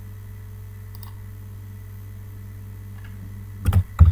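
Steady low electrical hum, with a faint click about a second in and a few sharp clicks near the end from a computer keyboard and mouse as a file name starts to be typed.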